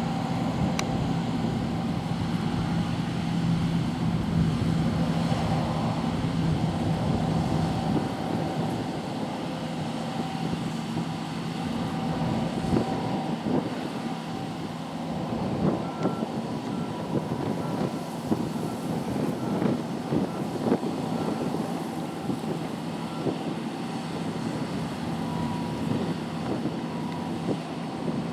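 John Deere T560 combine harvester running steadily under load while cutting barley, with scattered knocks. A warning beeper sounds repeatedly for several seconds past the middle.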